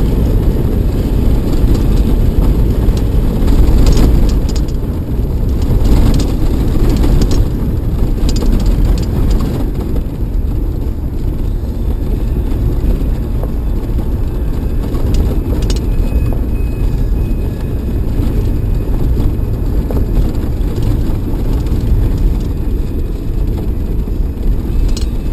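Off-road vehicle driving fast on a gravel desert track, heard from inside the cabin: a loud, steady rumble of tyres and drivetrain, broken by a few sharp knocks.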